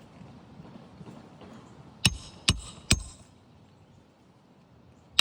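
Three quick hammer blows about 0.4 s apart, each with a short metallic ring, driving a roofing nail into an asphalt shingle. Another strike lands at the very end.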